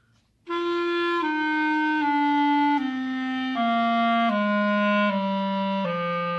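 Clarinet playing a slow descending scale, starting about half a second in: about eight held notes, each a step lower than the last. Each added finger covers another tone hole and lengthens the air column, lowering the pitch.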